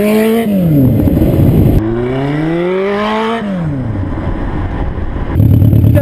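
Sport motorcycle engine accelerating twice, its pitch climbing steadily and then dropping as the throttle closes. About five seconds in it gives way to a steady low drone.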